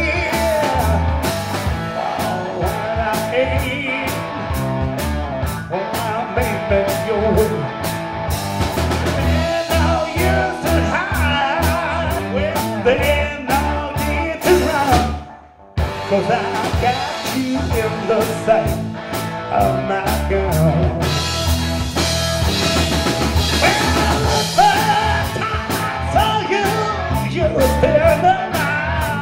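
Live blues-rock band playing: a man singing into a microphone over electric guitars, bass and a drum kit keeping a steady beat. About halfway through the whole band stops dead for a moment, then comes straight back in.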